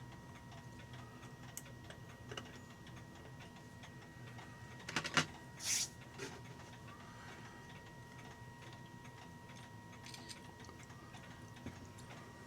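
Faint, steady ticking of clocks. A quick cluster of metallic clicks and a short rasp come about five seconds in, as parts of a clock movement are handled while a mainspring is worked out.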